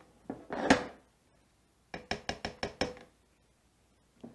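A ladle knocking against a stainless steel saucepan of thick béchamel sauce: two knocks, then a quick run of about six taps about two seconds in.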